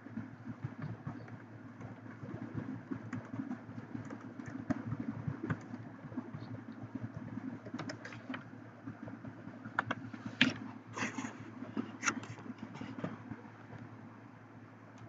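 Computer keyboard and mouse clicks, scattered and loudest about two-thirds of the way through, over a steady low hum.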